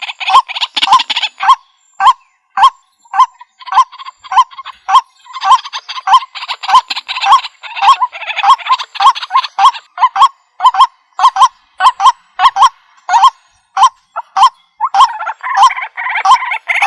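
White-breasted waterhen calling: loud repeated 'wak' notes, about two a second, with stretches of harsh croaking chatter over them at the start, through the middle and near the end.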